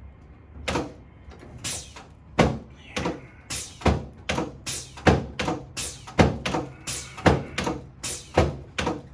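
A series of sharp knocks or clacks, about two a second, starting under a second in and keeping up with little change in spacing.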